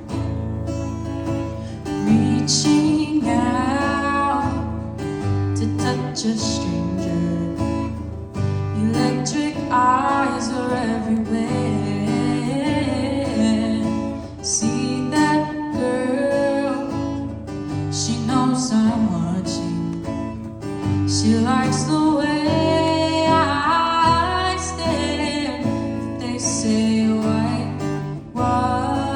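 A female voice singing a slow song over strummed guitar accompaniment.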